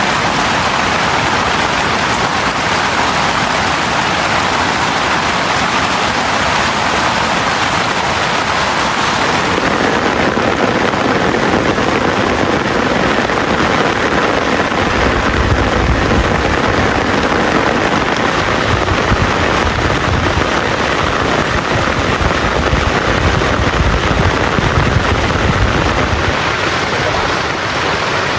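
Heavy rain pouring down steadily, with a deep low rumble joining about halfway in for some ten seconds.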